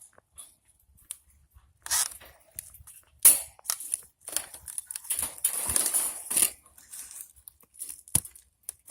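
Dry leaves and twigs rustling and crunching in irregular bursts, with a sharp crack about eight seconds in.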